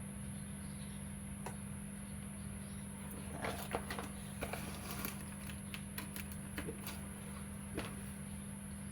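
Faint handling noise: scattered small clicks and taps of a plastic lamp and its USB-C cable being handled and plugged in, a cluster of them about halfway through, over a steady low hum.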